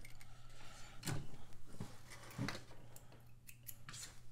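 Scissors snipping thread tails off a freshly sewn seam, a few short sharp snips along with fabric handling. A steady low hum runs underneath.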